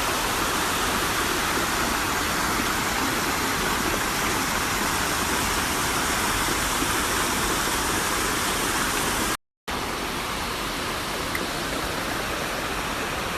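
Floodwater rushing, a steady noise of fast-moving water. It breaks off completely for a moment about nine and a half seconds in, then goes on a little quieter.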